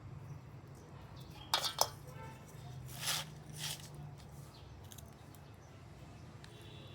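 Two or three sharp clinks about a second and a half in, each with a short ringing tail, then two brief hissing bursts, over a low steady hum.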